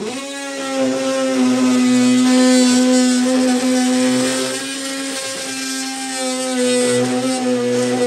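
Small electric cutting tool running steadily while cutting the hood's sheet metal, a high even whine whose pitch wavers slightly as the blade loads up.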